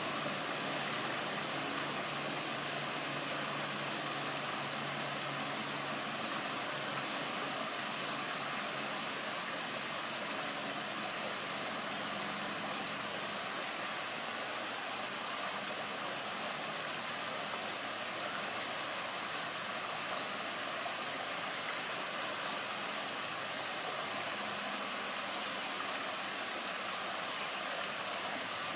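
Water pouring down a small stone ledge into shallow water: a steady rushing hiss.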